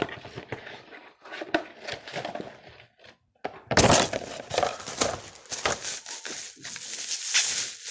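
Headphone packaging being handled: scattered knocks and rustles of the box, then, from about four seconds in, a dense stretch of crinkling plastic wrap.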